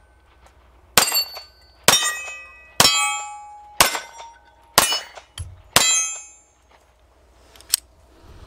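Walther CCP M2 pistol fired six times at a steady pace, about one shot a second, each shot followed by the ring of a steel plate target being hit. A single sharp click comes near the end.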